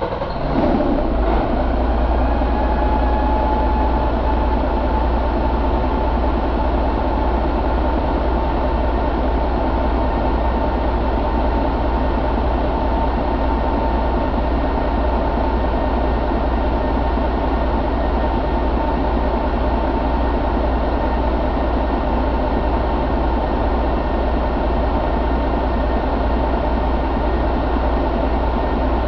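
Detroit DD13 inline-six diesel engine idling steadily just after starting. A high whine rises a little over the first couple of seconds, then holds steady over the idle.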